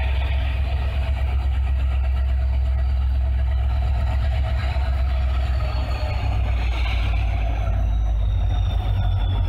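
WDP4D diesel-electric locomotive's 16-cylinder two-stroke EMD engine running under power as it hauls an express train away from the station toward the listener. A steady low rumble, with a thin high whine that slowly falls in pitch over the second half.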